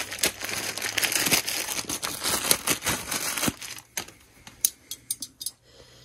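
Packaging crinkling and tearing as a new clutch spring is unwrapped, followed by a few sharp clicks near the end.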